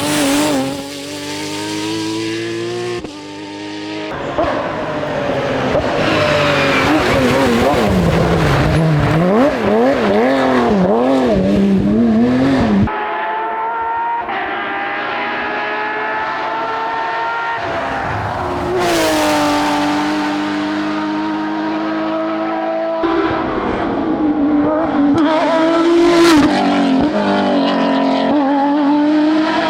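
Porsche rally cars running hard in a string of short clips, engines revving up and falling away through gear changes, with some tyre squeal. In the middle the engine note swings up and down several times in quick succession, and the sound changes suddenly at each cut.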